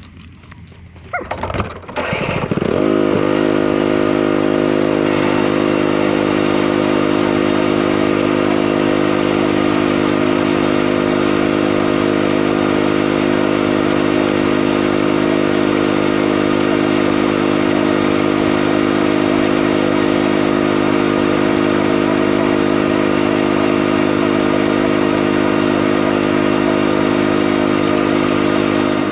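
A vehicle engine comes up about a second in, its pitch rising, then runs loud at steady revs with an even drone.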